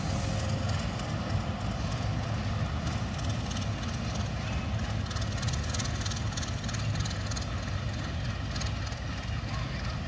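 Diesel-electric locomotive (DL560C / WDM-3A) engine giving a steady low drone as the train pulls into the station.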